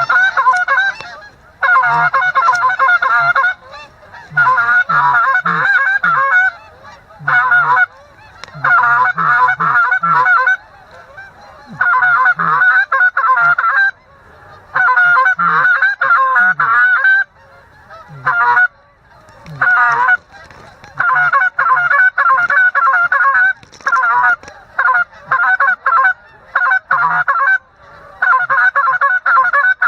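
A goose call blown in repeated runs of rapid honks and clucks, each burst lasting a second or two with short pauses between, calling to draw geese in.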